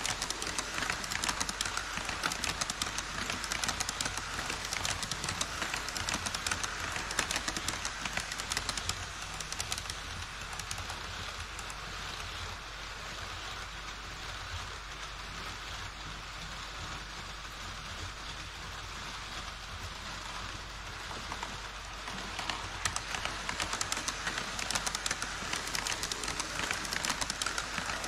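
HO-scale model trains running on KATO Unitrack: a dense, rapid patter of wheel clicks over the rail joints. It fades in the middle and grows louder again near the end as an E5 series Shinkansen model and a freight train pass close by.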